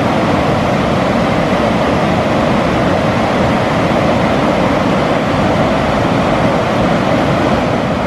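Steady rush of the Hraunfossar waterfalls cascading over rock into the river, a dense, even noise without a break.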